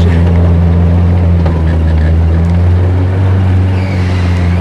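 Toyota pickup truck's engine running with a steady low drone as the truck drives through water; its pitch shifts slightly about two and a half seconds in.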